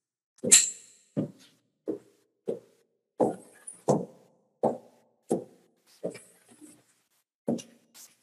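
Footsteps on a hard polished floor at a steady walking pace of about one and a half steps a second, each step a short separate knock. They pause briefly near the end, then two more steps follow.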